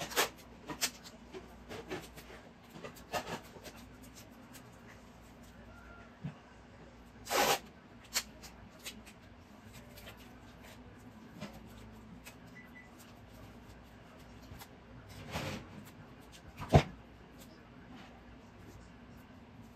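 Duct tape being pulled off the roll in short rips and wrapped around metal wire H-stakes, with scattered small rustles and clicks from handling. The longest rips come about 7 and 15 seconds in, followed by a sharp click.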